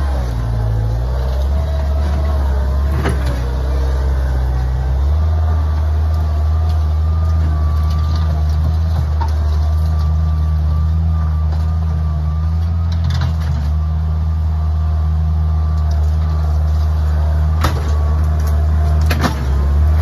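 Bobcat 743 skid steer's engine running steadily at working revs, with a low drone that steps up about five seconds in. A few sharp knocks come from the machine as it works.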